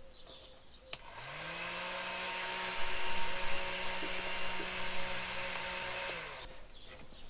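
Small electric fan being tested on a newly installed socket. It is switched on with a click about a second in, its motor spins up to a steady hum with a whoosh of air, and near the end it is switched off with another click and winds down.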